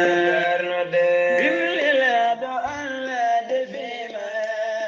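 Islamic devotional chanting: a voice singing in long, held melodic lines with slow bends in pitch, no speech.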